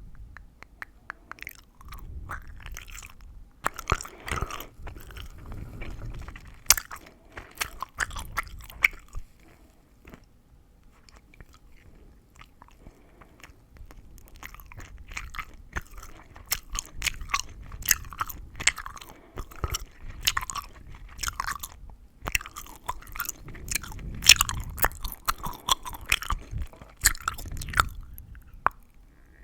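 Gum chewing, wet mouth sounds full of sharp crackles of the gum, quieter for a few seconds about a third of the way in before picking up again.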